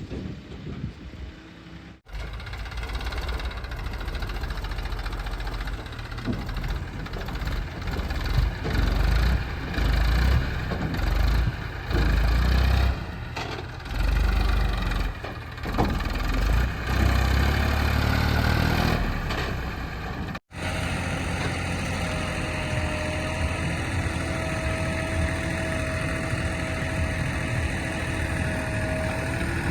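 Heavy diesel engine of earthmoving machinery, revving up and down in repeated surges under load. After a cut about two-thirds through it runs steadily, with a steady high whine over it.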